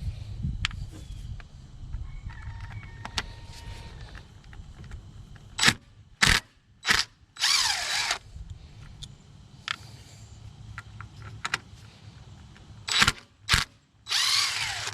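Rooster crowing twice, about seven seconds in and again near the end, with several sharp clicks and knocks, the loudest sounds, among them.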